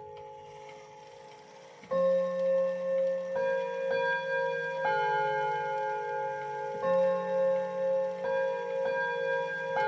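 Jauch German chime clock playing its chime melody. Ringing notes from the previous phrase fade for about two seconds, then two phrases of four struck notes follow, each note ringing on into the next.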